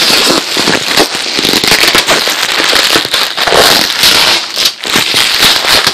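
Clear plastic packing wrap crinkling and crackling loudly as hands pull at it right next to the microphone, in a dense, irregular run of small crackles.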